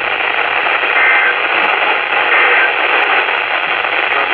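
Steady, loud radio static hiss on a received alert broadcast, cut off above about 4 kHz. Two short two-tone data bursts come through it, about a second in and again a second and a half later: the EAS end-of-message code bursts that close an alert.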